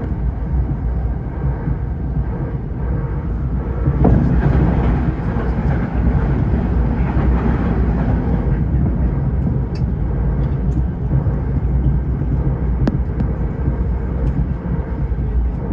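Running noise of an Eidan 05 series subway train at speed, heard from inside the front car: a steady low rumble of wheels on rail and traction motors. It gets louder for a few seconds from about four seconds in, with a few faint clicks later on.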